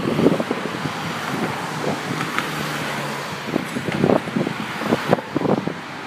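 Cars driving past on a road: steady traffic noise of engines and tyres, with a few brief thumps.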